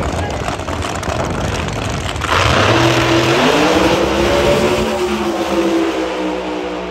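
Two no-prep drag cars' engines rumbling at the starting line, then about two seconds in both launch at full throttle: a sudden loud burst of engine noise whose pitch climbs as they accelerate away down the track, fading near the end.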